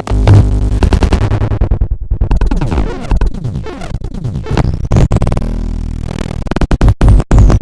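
Chopped, glitchy electronic music: rapidly stuttering synth tones with sliding pitches, breaking off in two brief dropouts near the end.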